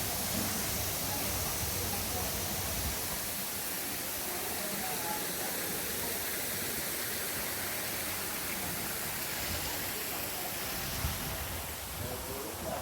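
Steady rushing hiss of open-air ambience, with faint distant voices now and then.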